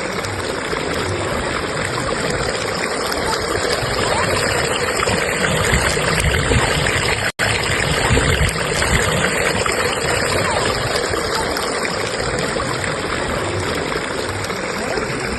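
Fast-flowing stream current rushing steadily. The sound cuts out for an instant about seven seconds in.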